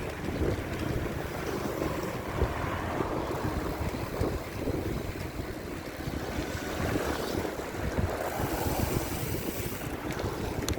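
Wind buffeting the microphone: a low, gusting rumble that rises and falls throughout.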